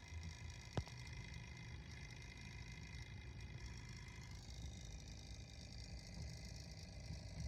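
Small computer cooling fans running, a faint steady hum with a few thin whining tones, and a single short click about a second in.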